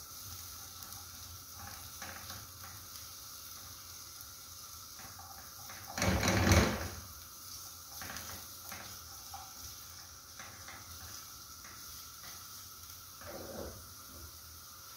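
Chopped onions and garlic frying in a little oil in a nonstick frying pan, stirred with a wooden spatula: a faint steady sizzle with light scrapes and taps of the spatula on the pan. One louder knock comes about six seconds in.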